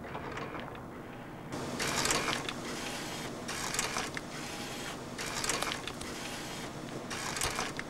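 Photo-printing machine running and feeding out prints: a steady mechanical noise with about five louder bursts of machine clatter, each under a second long, starting about a second and a half in.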